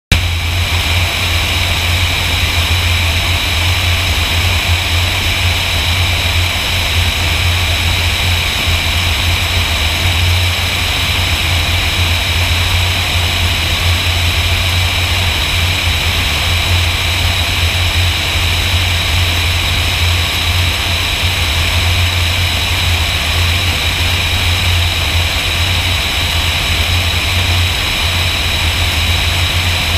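Light aircraft's piston engine and propeller running steadily in level descent, a constant loud drone with a strong low hum and a rushing airflow hiss.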